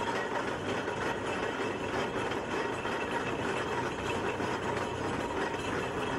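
Aveling and Porter steam road roller running, a steady mechanical and steam noise with no break.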